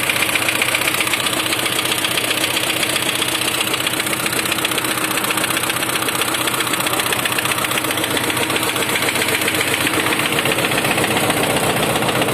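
Engine idling with a heavy, rapid, rattling knock. The owner suspects the third cylinder and takes the knock for severe detonation, possibly from a damaged piston.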